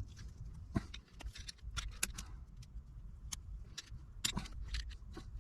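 Irregular metal clicks and scrapes of a tool prying at a tightly stuck shaft seal in a hydraulic pump housing.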